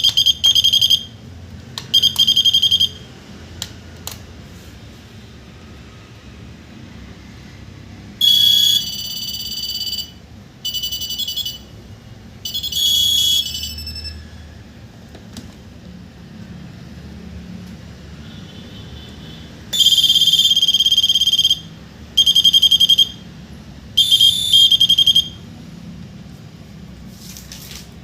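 Electronic alert buzzer of a wireless nurse call receiver panel beeping in shrill bursts of half a second to two seconds, in groups with pauses between, as call signals arrive from patient transmitters.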